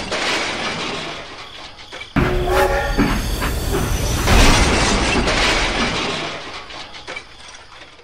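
Steam-train sound for a toy steam locomotive: a whistle blast sounds suddenly about two seconds in, over running noise that swells and then fades away towards the end.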